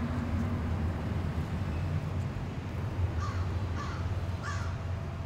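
An American crow cawing three times at an even pace over a steady low rumble of traffic.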